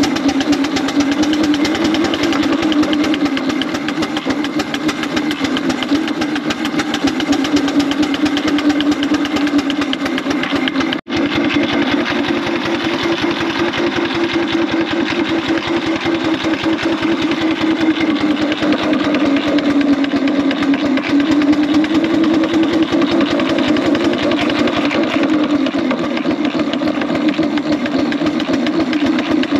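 4-inch scale Foster steam traction engine driving along in big wheel, its exhaust chuffing in rapid, even beats over the clatter of its motion, working on about 60 psi of steam.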